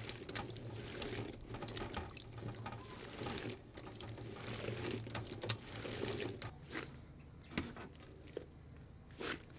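Riberries being washed by hand in a bowl of water: water sloshing and splashing with the small firm berries clicking against each other and the steel bowl. The splashing thins out to a few scattered clicks about six and a half seconds in.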